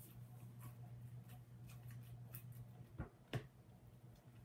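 Faint handling sounds of slime being stirred in a plastic bowl with a plastic spatula: soft scrapes and light taps, with two sharper knocks about three seconds in, over a steady low hum.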